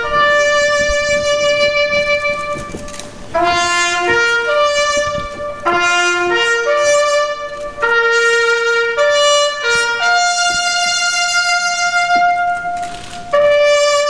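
Brass-led instrumental music playing a slow, stately melody in long held notes and phrases, the national anthem played while everyone stands at attention.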